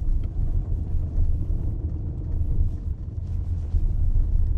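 Steady low rumble of a vehicle running, heard from inside its cab.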